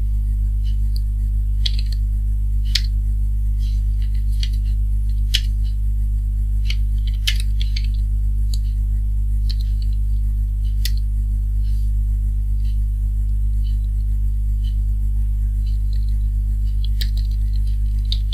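Steady low electrical mains hum with irregular computer keyboard keystroke clicks from typing.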